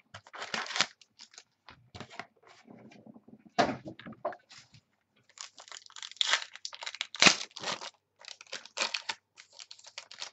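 Football card packs being handled and torn open: wrappers crinkling and ripping in irregular bursts, with two sharper, louder rips about three and a half and seven seconds in.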